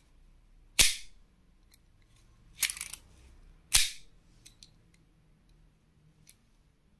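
Hammer of a homemade copper-pipe airgun pulled back by its pin handle and let go, snapping home inside the tube with three sharp metallic clacks about a second in, near the middle and a second later, and small ticks of the handle in between.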